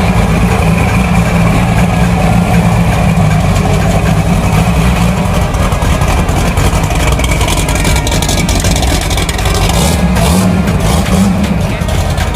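Turbocharged Chevrolet Caravan engine rumbling loudly through its exhaust, with a run of crackles and pops from the exhaust starting about seven seconds in.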